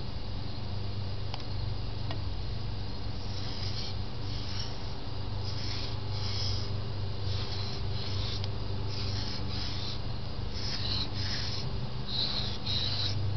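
Kitchen knife blade stroked back and forth on a wet Japanese water stone: rhythmic scraping strokes, about one a second, faint at first and clearer from about three seconds in.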